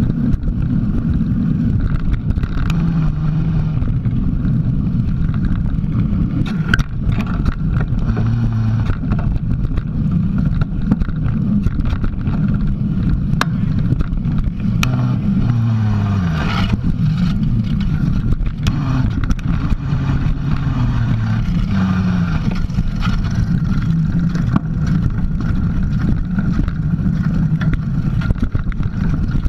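Mountain bike riding a dirt trail, heard through a camera mounted on the bike: a constant heavy rumble of tyres and wind buffeting, with scattered knocks and rattles over bumps and a low hum that shifts up and down in pitch.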